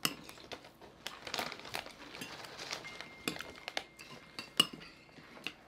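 Spoons and chopsticks clinking and tapping against plates and bowls while people eat: a scatter of sharp clicks of uneven loudness, with one short ring about three seconds in.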